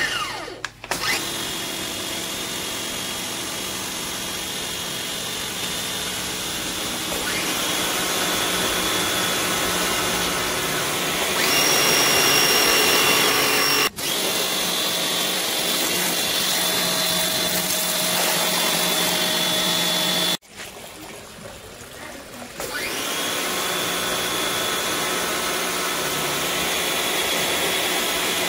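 APR AP73 electric pressure washer running, its motor and pump giving a steady whine while the jet sprays. The sound breaks off abruptly twice, and after the second break it is quieter and uneven for a couple of seconds before it picks back up.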